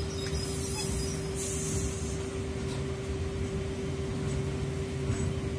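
Freight train of flat wagons loaded with steel coils rolling past, a steady rumble of wheels on the rails with a constant hum running through it.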